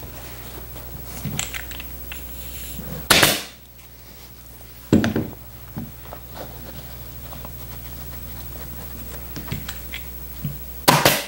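Pneumatic upholstery staple gun firing single staples into a fabric cover on a wooden chair frame: sharp shots about three seconds in and near the end, with a duller thump about five seconds in. Softer rustles and taps of the fabric being handled come between the shots, over a steady low hum.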